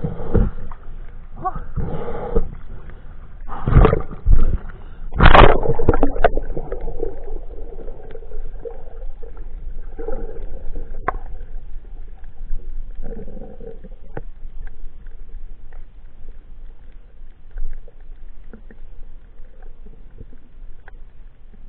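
A freediver splashing and breathing hard at the sea surface, then going under, in a series of loud bursts over the first six seconds. After that comes muffled underwater noise with scattered sharp clicks.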